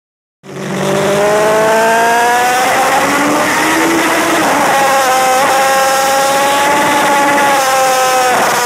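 Honda CB900F racer's inline-four engine running hard at high revs on track, its pitch climbing slowly, dipping briefly about five seconds in and falling near the end, with wind rush on the onboard camera. It cuts in abruptly about half a second in.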